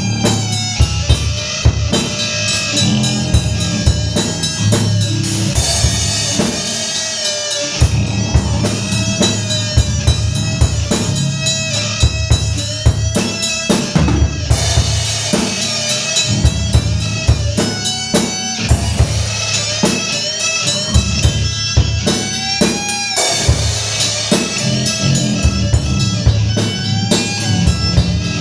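Metal song: a drum kit plays dense kick and snare hits under melody lines that bend in pitch, with a heavy low end that drops out briefly about seven seconds in.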